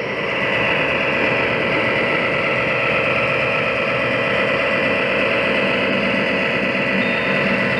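Diesel locomotive engine sound running steadily at idle, the simulated prime-mover sound of an HO scale model E8 diesel locomotive.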